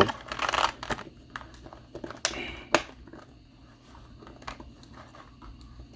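Plastic packaging insert of a boxed vinyl collectible figure crinkling and clicking as it is handled, in a few short bursts over the first three seconds, then only faint handling noises.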